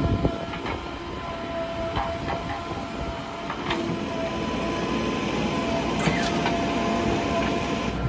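JCB 3DX backhoe loader's diesel engine working under load with a steady whine while the backhoe arm digs and swings a bucket of soil, with a couple of sharp knocks partway through.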